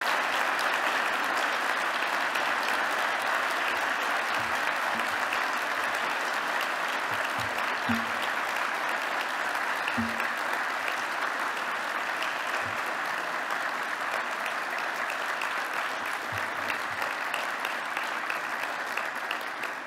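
A large audience applauding steadily, the clapping easing slightly toward the end.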